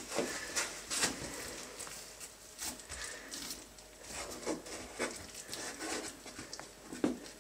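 Irregular soft pats, taps and rustles of hands folding and pressing thin samsa dough around a raw meat filling on a wooden board, with a firmer knock about a second in and another near the end.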